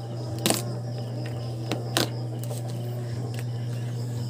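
Kitchen knife splitting lobsters on a wooden chopping board: a few short cracks of shell and knocks of the blade, the loudest about half a second in and at about two seconds, over a steady low hum.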